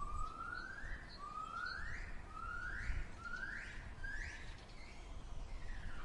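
A gibbon calling: a series of rising whoops, each sliding up about an octave, coming quicker and shorter as the series goes on, then fading, over a low background rumble.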